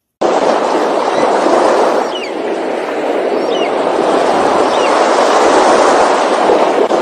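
Steady loud rushing noise, like open-air wind and surf, with three faint high falling cries about two, three and a half and four and a half seconds in; it cuts off suddenly near the end.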